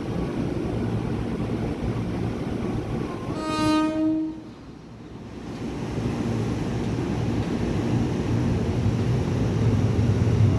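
Train horn sounding one blast of about a second, a third of the way in, over a steady low rumble of rail traffic. The rumble swells again near the end as a non-stopping train passes through.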